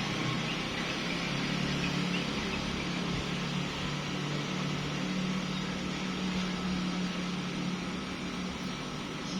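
Mount Merapi volcano rumbling: a steady roar with a continuous low hum under it, the volcano 'coughing'.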